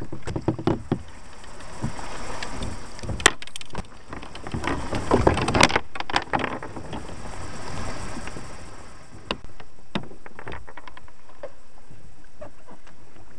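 Irregular hollow knocks, cracks and scraping as a kayak is hauled over wood and brush in a shallow creek. From about nine seconds in, a steady rushing noise takes over.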